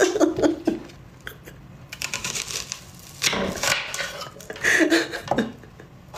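A woman laughing softly in short bursts, with light knocks and rustles from hands on a wooden chopping board.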